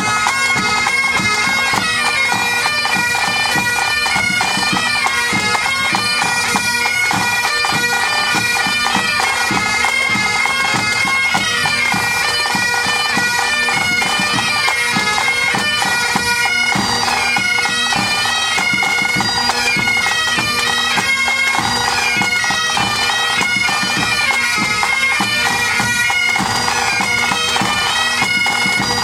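A pipe band playing: Great Highland bagpipes sound steady drones under a changing chanter melody, with snare and bass drums beating time.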